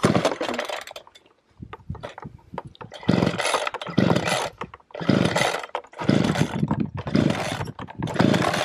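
Petrol strimmer being pull-started from cold with the choke on and the bulb primed: the recoil starter cord is yanked, then after a short pause pulled again roughly once a second, and the engine turns over without catching.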